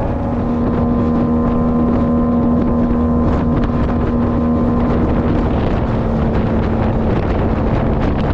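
Boat motor running steadily under way, with wind buffeting the microphone; the engine note drops slightly about five seconds in.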